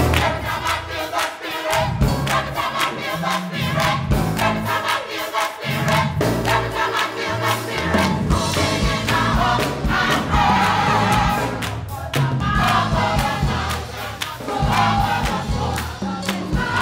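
Background music with a steady beat and choir-like singing.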